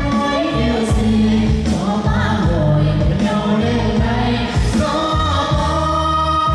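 A Vietnamese pop song: singing over a backing track with a steady bass and drum beat, and a voice holding a long note from about five seconds in.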